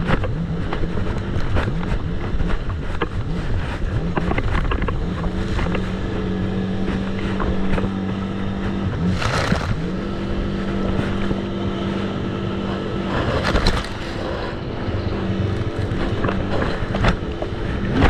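Jet ski engine running at a steady pitch over a dense rushing noise, with two brief louder rushes about nine and thirteen seconds in.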